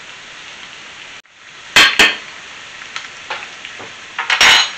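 Pork ribs with tomato and peppers sizzling steadily in a frying pan. The sizzle is broken by two sharp knocks about two seconds in and a louder clatter near the end, from a utensil or the cutting board against the pan.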